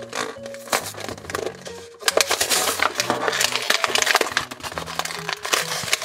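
Cardboard backing and clear plastic blister packaging of a toy pack being peeled and torn open: a dense run of crinkles and crackles, thicker from about two seconds in. Soft background music with held notes plays underneath.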